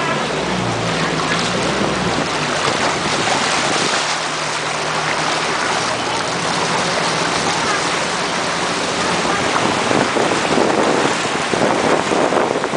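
Steady rushing wash of floodwater churned and pushed aside by a vehicle moving through it, getting louder near the end.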